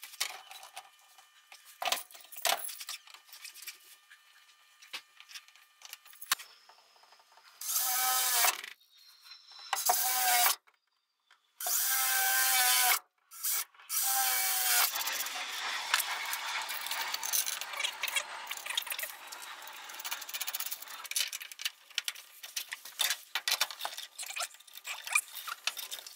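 Cordless drill boring through the bus's sheet-metal interior panel in four short bursts, its motor whine bending in pitch as the bit bites. Scattered clicks of handling come before the bursts, and a longer stretch of scraping and clicking follows as the bracket is fitted.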